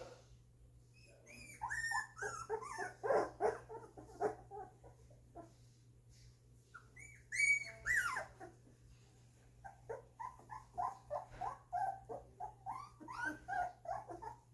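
Two-week-old golden retriever puppies whimpering and squeaking in quick runs of short, high cries that bend up and down, in three spells with pauses between.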